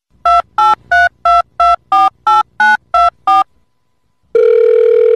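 Telephone keypad touch-tones: about ten quick two-tone beeps, roughly three a second, as a number is dialled. About a second later a steady telephone line tone starts near the end.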